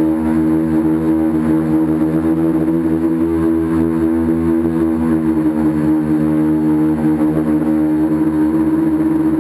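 Radio-controlled tricopter's three electric motors and propellers droning in flight, heard close up from a camera mounted on the craft. A steady multi-tone hum whose pitch shifts slightly as the throttle changes.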